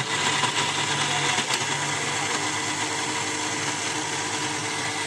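Kitchen mixer grinder running steadily, blending chopped beetroot with water, then cutting off sharply.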